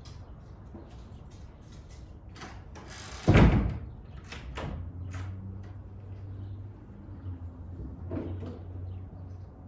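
A car door slams shut about three seconds in, with a few lighter knocks around it. A low steady hum of the 2004 Chevrolet Impala's engine running follows from about five seconds in.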